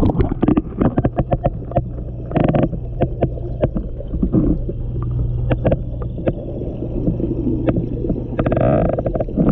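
Steady low hum of the bait tank's water pump, heard from under the water, with many sharp clicks and knocks. A short rush of sloshing water comes near the end, and the hum cuts off suddenly.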